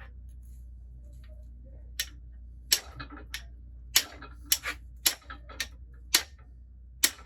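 Hammer blows on the metal of an engine being stripped: about a dozen short, sharp knocks at uneven intervals, starting about two seconds in, as a stuck front plate or pulley is knocked free.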